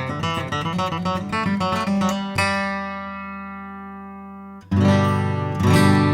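A 1941 Gibson J-35 acoustic guitar being played. Quick picked and strummed notes give way, about two and a half seconds in, to a strummed chord left to ring and fade for about two seconds. Two more strong strummed chords follow near the end.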